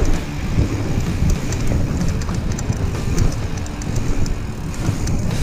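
Mountain bike ridden over packed-dirt rollers: wind buffeting the handlebar camera's microphone and the tyres rumbling on the dirt, with scattered clicks and rattles from the bike.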